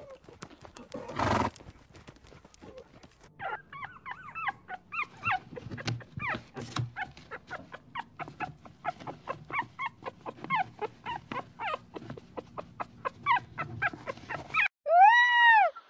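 A horse gives a short snort about a second in. Then puppies whimper and squeak in many short high cries, among light clicks. Near the end a peacock gives one loud call that rises and falls in pitch.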